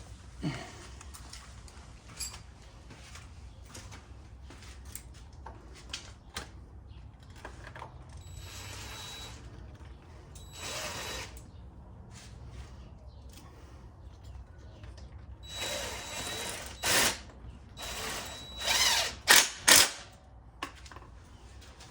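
Tools driving the mounting bolts back into an ATV radiator: scattered metal clicks and clinks, with several short mechanical runs of about a second each, the loudest near the end.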